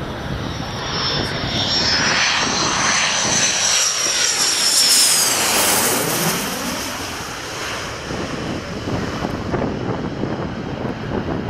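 MiG-29's twin turbofan engines on landing approach, passing low overhead with gear down. Steady jet noise swells to a peak about five seconds in, with a high turbine whine that falls in pitch as the jet passes, then settles back to a steady rumble.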